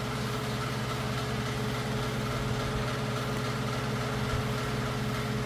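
Steady low mechanical hum of a motor running in the background, with one steady higher tone over it.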